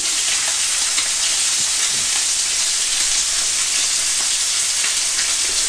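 Cod and red pepper skewer frying in butter in a hot ridged grill pan: a steady, even sizzle. The pan is hot enough that the butter is starting to smoke.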